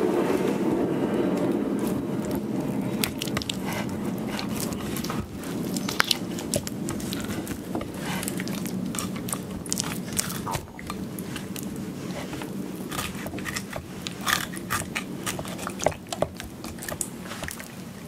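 A knife cutting through a Japanese stargazer's skin and bones on a wooden cutting board, making irregular crunching and crackling clicks. A steady low hum underneath fades over the first several seconds.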